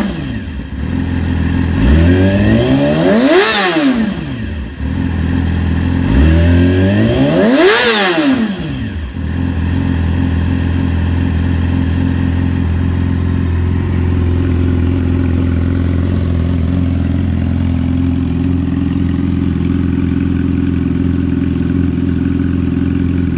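2017 Yamaha R6's 600 cc inline-four through a three-quarter SC Project exhaust, revved hard while standing: one rev falls away at the start, then two more sharp revs each climb and drop back within about two seconds. From about nine seconds in it settles to a steady idle.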